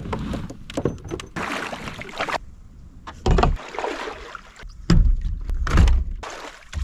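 Water splashing and sloshing around a kayak in uneven bursts, with two loud low thumps a little under a second apart near the end.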